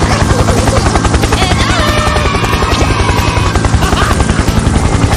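Helicopter rotor sound effect: a loud, fast, even chopping of more than ten beats a second that starts suddenly.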